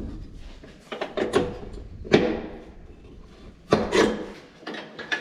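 Irregular knocks and clattering, the sharpest about two seconds in and again near four seconds, with rubbing sounds between them.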